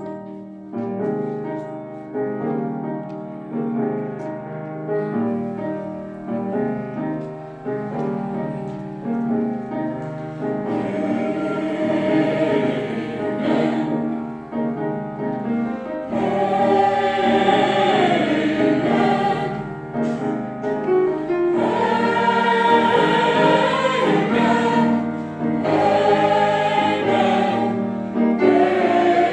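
Church chancel choir singing a Christmas anthem in parts. It starts abruptly and grows louder and higher about halfway through.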